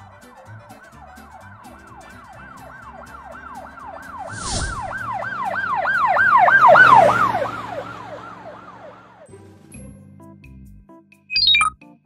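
Police siren sound effect, a fast repeating yelp of about three sweeps a second, swelling to its loudest about seven seconds in and fading away by nine as if passing by, over light background music. A short bright sound effect near the end.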